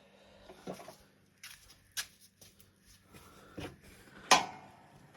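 Scattered light knocks and rustles of things being moved or handled, then one sharp clank about four seconds in that rings briefly.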